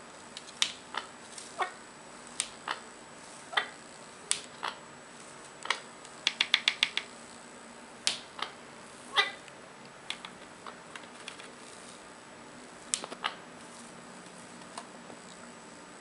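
Indian ringneck parakeet making a series of sharp clicks at its reflection in a mirror, with a quick run of about six just past the middle. Fewer clicks near the end.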